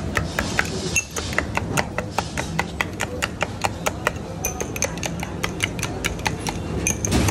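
A long metal spoon stirring chai in glass tumblers, clinking quickly against the glass at about four or five strikes a second, over a low steady background hum.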